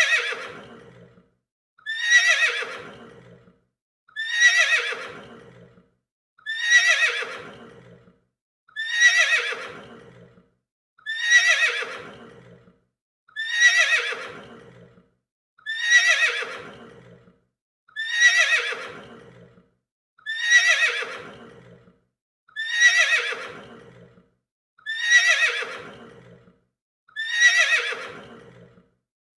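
A horse neighing: the same whinny repeated every two seconds or so, about thirteen times. Each call starts loud and high and falls in pitch as it fades away.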